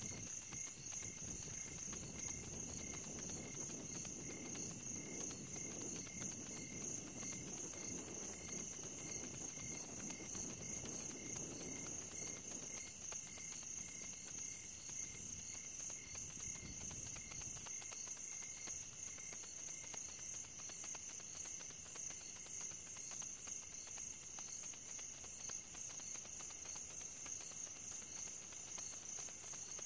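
Crickets chirping: a steady high trill with a regular pulse. A low rumble sits beneath it and stops a little past halfway.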